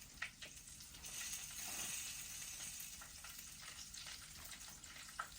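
Chicken frying in hot oil: a faint, steady sizzle that swells for a couple of seconds, with a few light clicks.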